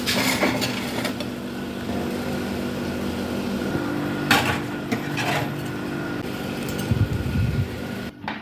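Dishes and a metal utensil clinking and scraping a few times, with a couple of dull knocks near the end, over a steady hum and hiss.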